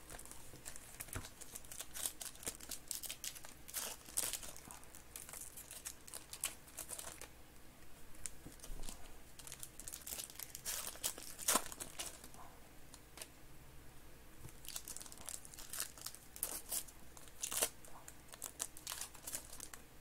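Foil wrappers of Panini Certified Football card packs being torn open and crinkled by hand, in irregular bursts of crackling with quieter gaps between.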